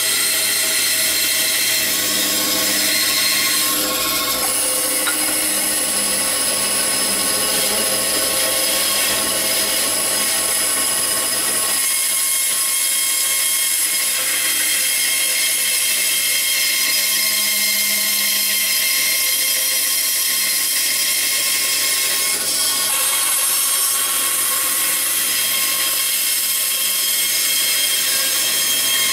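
Band saw running, its blade cutting a curved outline through a thick block of wood: a steady whine of many high tones over the noise of the cut.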